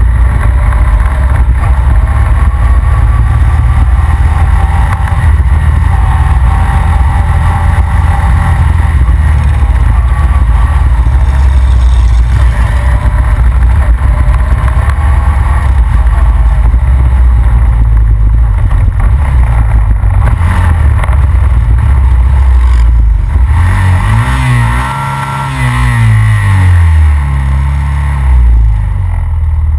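Honda Rancher ATV's single-cylinder four-stroke engine running at riding speed, with heavy wind rumble on the microphone. In the last few seconds the engine speed falls and rises several times as the throttle is eased off and opened again.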